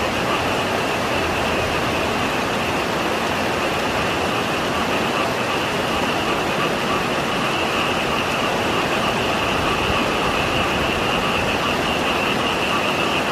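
Heavy typhoon rain pouring steadily, with a continuous chorus of frogs calling through it as an unbroken high trill.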